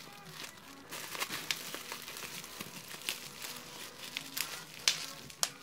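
Plastic bubble wrap crinkling and crackling as it is handled and unwrapped, with two sharper clicks near the end.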